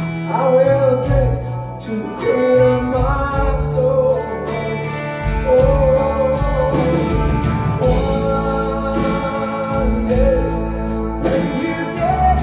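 Live country-rock band playing an instrumental break in which a fiddle carries a sustained, wavering melody over electric guitars, bass and drums.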